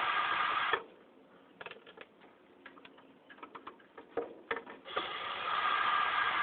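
Cordless drill/driver running, backing out the screws on a ceiling fan's switch housing. It stops just under a second in, light clicks and taps of screws and parts being handled follow, and it runs again about five seconds in.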